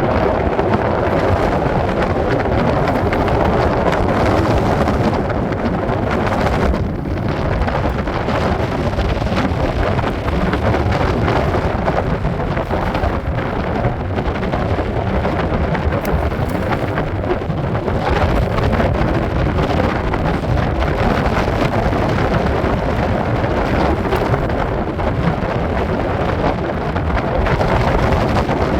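Strong wind buffeting the microphone: a loud, steady rumble and rush with no let-up.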